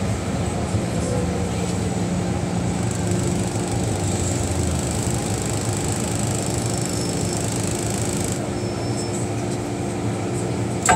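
MTR Tsuen Wan Line train heard from inside the carriage as it slows along the platform and comes to a stop: steady running and braking noise with low level tones, the higher hiss dropping out about eight seconds in.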